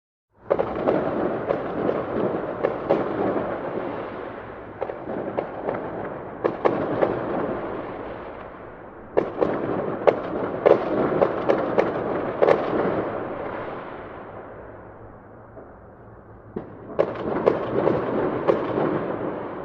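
Fireworks bursting and crackling: dense crackle with sharp bangs, coming in three waves. The first starts suddenly about half a second in, the second about nine seconds in, the third about seventeen seconds in, and each dies away.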